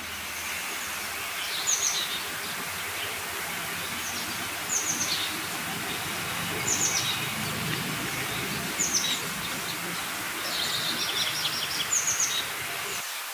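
A bird chirping: short, high chirps that drop in pitch, repeated about every two seconds, with a quicker run of chirps near the end, over a steady outdoor hiss.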